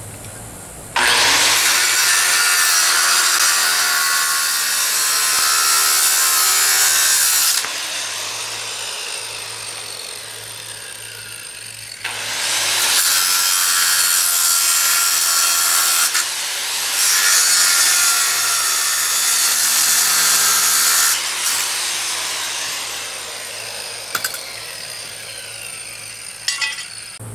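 Electric angle grinder with a cut-off disc cutting through rusted steel nuts and bolts on a lawn mower's wheel bracket, in three long spells of loud grinding with the motor running free between cuts. A few sharp knocks near the end.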